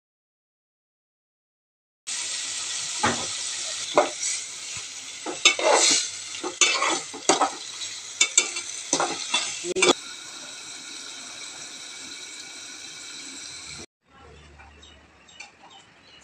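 Chicken and masala frying in a metal pot, sizzling steadily, starting about two seconds in. A metal spatula stirs and scrapes against the pot with sharp clicks until about ten seconds in, and the sizzle continues alone. Near the end it gives way to a much quieter faint background with a low hum.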